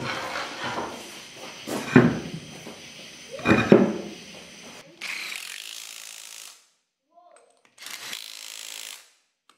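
A truck wheel being shifted and pushed onto the hub studs, with two heavy thumps, then a Milwaukee cordless impact wrench running on the lug nuts in two short runs of about a second and a half each.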